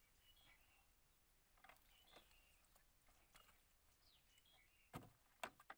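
Near silence, with a few faint short high chirps and two or three soft clicks near the end.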